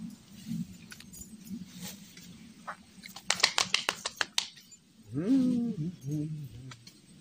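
A quick rattle of about a dozen sharp clicks, then a young bull calf bawling once, a call that rises, holds and falls away.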